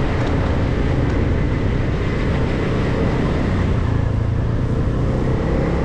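Motorcycle engine running steadily while riding, under a continuous rush of road and wind noise.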